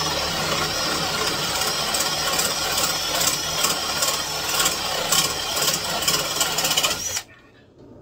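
Cordless drill running under load, boring a hole through the house wall for a waterline; the steady drilling cuts off suddenly about seven seconds in.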